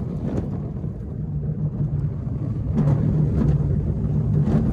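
Steel roller coaster train running through banked turns: a steady rumble of the wheels on the track, mixed with wind buffeting the on-board microphone, swelling briefly a couple of times.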